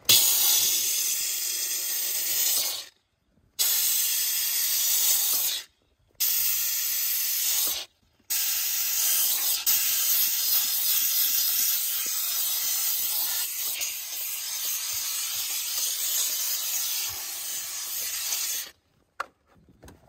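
Handheld steam cleaner jetting steam through a brush nozzle: a loud, steady hiss, broken three times by short silences, that cuts off about a second before the end.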